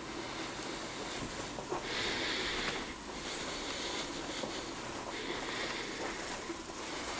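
Indoor room tone with a steady hiss and a thin high whine, with soft rustling swells about 2, 4 and 6 seconds in as a handheld camera is carried through the house.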